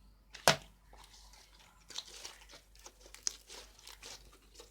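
Slime being squeezed and stretched by hand, giving sticky crackling and popping, with one sharp, loud pop about half a second in.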